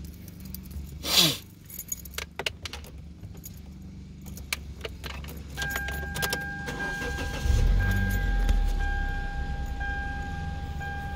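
Car keys jangling and clicking as the ignition key is put in and turned to on in a Kia Soul. About five and a half seconds in, the car's electronic warning chime starts and keeps sounding steadily, with a low rumble a couple of seconds later.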